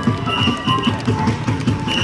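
Street brass band playing in a parade: held horn notes over a quick, steady drumbeat.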